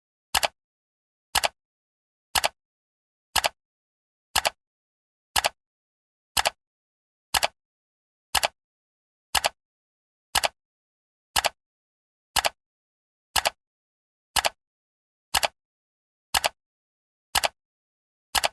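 Timer ticking sound, one sharp tick each second with silence between.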